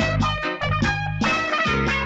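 Instrumental film soundtrack music with a steady beat.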